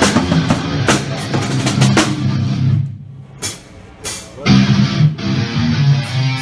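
Rock band playing live: drum kit with bass and electric guitar. The band breaks off about three seconds in, with only a couple of drum hits in the gap, then starts up again about a second and a half later.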